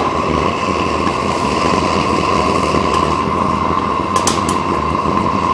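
Metal-melting furnace running steadily while heating a copper charge, with a constant whistling tone over a rushing noise. A brief click about four seconds in.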